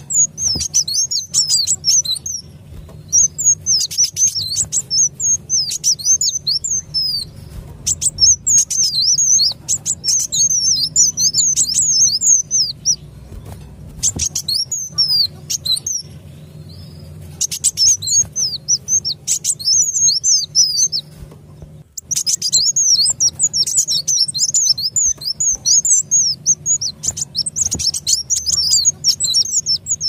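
Kolibri wulung sunbird calls from a lure recording: runs of rapid, high-pitched twittering chirps lasting several seconds, broken by short pauses, over a faint low hum.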